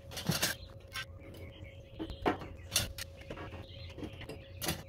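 Stainless steel burner tubes knocking and clinking against a steel channel-iron rail and the metal grill body as they are set in place, about five sharp knocks spread out.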